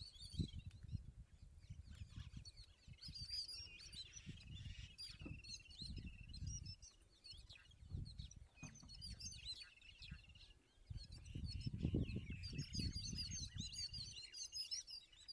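Yellow-billed babblers chattering in bursts of harsh, squeaky calls with short trills, the alarm calls of a flock mobbing an Indian eagle-owl. An uneven low rumble comes and goes underneath.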